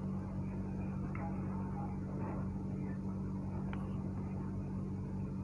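Sliced onions and garlic frying in oil in a wok, stirred with a wooden spatula that gives a few faint light taps, over a steady low hum.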